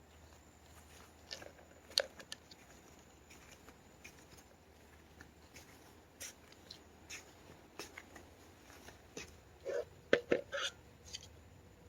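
Scattered small clicks and rustles, with a cluster of louder ones about ten seconds in.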